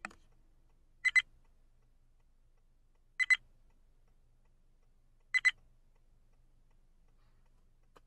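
A short electronic double beep, sounding four times at intervals of one to two seconds, over a faint low hum.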